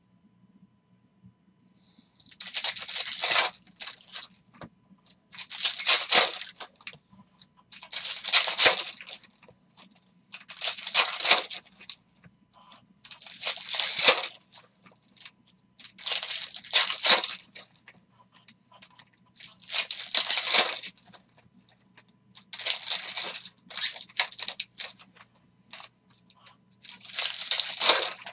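Foil Topps trading-card pack wrappers being torn open and crinkled by hand, pack after pack. The sound comes in about ten bursts of tearing and crinkling, two to three seconds apart, starting about two seconds in.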